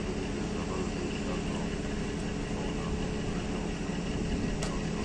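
Large lift truck's engine idling steadily, an even hum, with one sharp metallic click near the end.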